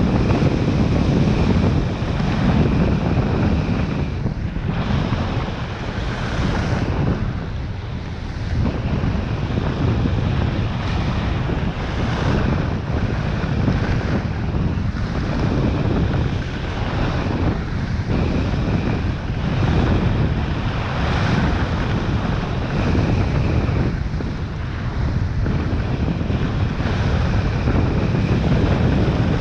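Wind rushing over a body-mounted camera's microphone during a downhill ski run, with skis scraping over groomed snow. The noise is loud and continuous, rising and falling every few seconds.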